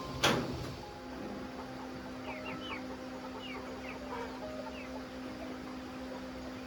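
Chickens clucking and peeping, with one sharp knock just after the start, the loudest sound. A steady low hum runs underneath.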